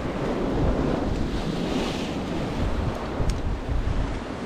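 Ocean surf surging and washing against a rock ledge, with a hissing swell of breaking water about a second and a half in. Wind buffets the microphone with a low rumble throughout.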